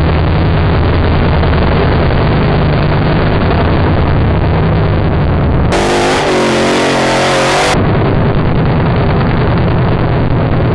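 Off-road buggy's engine running hard at high revs as it climbs a steep dirt hillside, a dense, steady drone. About six seconds in, the sound switches for two seconds to a clearer recording in which the engine's pitch wavers up and down as it revs. Then the steady drone returns.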